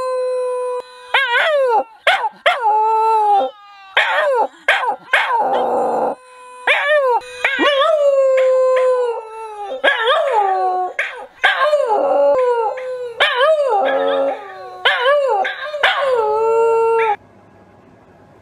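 Shiba Inu howling: a long series of pitched howls that waver up and down, broken by short breaths, stopping abruptly about a second before the end.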